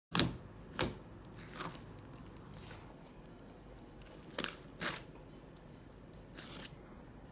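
Slime being mixed and squished by hand, giving a handful of sharp, irregularly spaced pops and crackles over a faint steady crackle.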